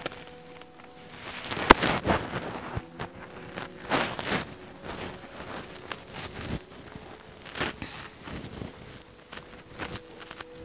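Tussar silk saree rustling and brushing in irregular bursts as it is handled and draped, with a sharp click about a second and a half in, over a faint steady hum.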